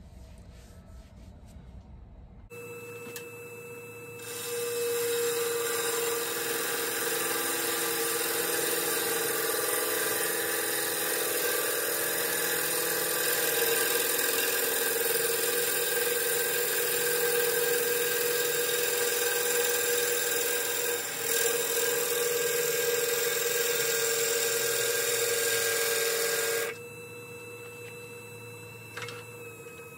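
Wood lathe spinning an ash bowl blank while a bowl gouge cuts the wood, a steady shearing hiss over the lathe's hum. The cut starts about four seconds in and stops a few seconds before the end, leaving the lathe running.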